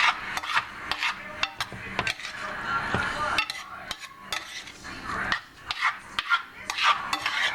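A utensil stirring peas, carrots and green beans sauteing in a pan of butter, with irregular clinks and scrapes against the pan.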